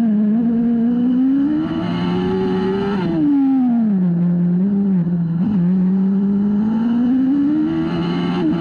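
A Suzuki 1000 cc inline-four motorcycle engine in a single-seater racing car, heard onboard under hard driving. The revs climb for about three seconds, drop sharply as the car slows for a turn, and waver twice. They hold low, then climb again near the end as it accelerates out.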